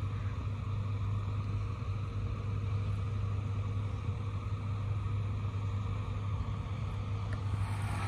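John Deere harvest machinery engine running at a steady low drone, unchanging throughout, over a soft even rush of field noise.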